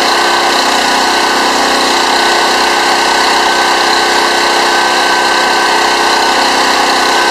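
Pressure washer's small gasoline engine running steadily at a constant speed, just revived after sitting unused for years and keeping running without quitting.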